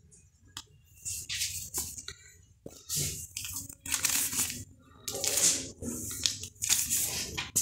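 Clear plastic outer sleeves of vinyl LP records crinkling and rustling as a hand flips through a stack, in a string of bursts roughly once a second, with a few light clicks between them.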